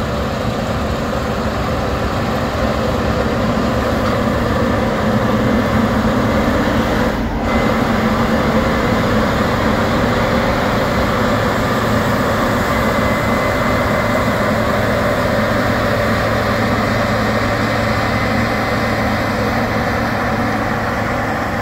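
New Holland CR 10.90 combine harvester at work in wheat: its big diesel engine and threshing machinery run steadily, louder as it passes close by. A tractor pulling a grain trailer adds its engine near the end.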